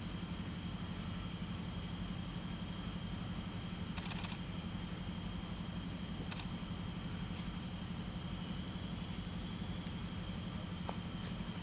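Steady low background hum with faint, steady high-pitched tones over it, broken by a short rattle of faint clicks about four seconds in and a single click about six seconds in.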